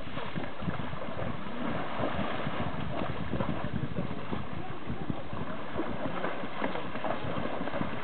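Horses wading through shallow river water, their legs splashing in an uneven run of small splashes.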